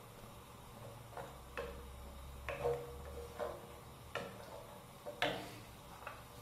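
Wooden spoon knocking against the side of a nonstick frying pan while stirring a mushroom cream sauce: a series of short, irregular knocks, about one a second.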